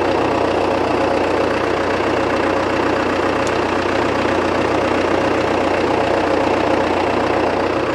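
1961 Case 831C tractor's diesel engine running steadily while its hydraulic pump works the freshly rebuilt three-point lift cylinder.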